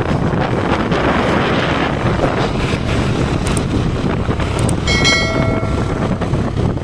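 Wind buffeting the microphone over the steady road noise of a moving vehicle. About five seconds in, a horn sounds for about a second.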